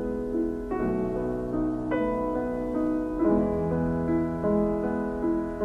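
Background piano music, a slow piece of held notes and chords.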